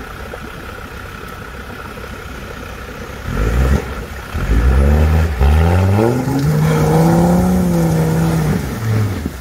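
Off-road 4x4's engine running steadily, then revved: two short blips about three seconds in, then held high for about three seconds before the revs drop back.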